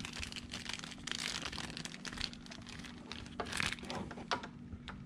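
Irregular small clicks, scrapes and rustles of hands working a plug and gear-lube fill hose on an outboard's lower unit as the plug is threaded in by hand, over a faint steady hum.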